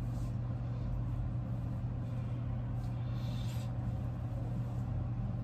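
Soft rustling of a cloth towel pressed and rubbed against the face, most noticeable about three seconds in, over a steady low hum.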